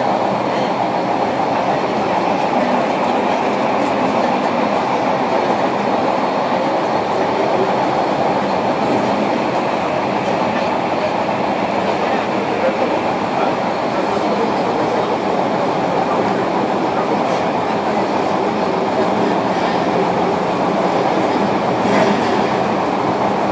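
Running noise inside a JR Kyushu 305 series electric train car moving through the subway tunnel: a steady rumble of wheels on rail with no change in speed.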